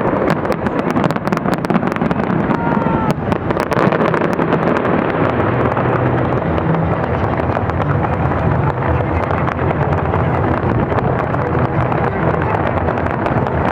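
New Year fireworks display bursting continuously: a dense barrage of crackles and bangs over a steady low rumble.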